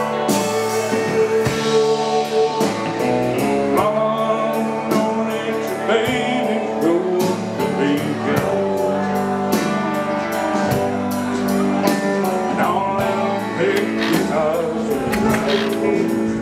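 Background song with singing, guitar and a steady beat.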